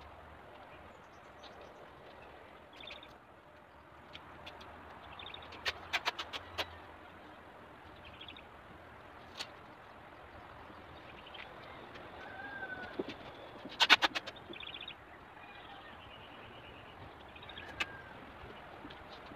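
Adhesive tape being pulled off its roll and torn in short crackling rips, a few about six seconds in and the loudest just before fifteen seconds. Birds chirp briefly in the background.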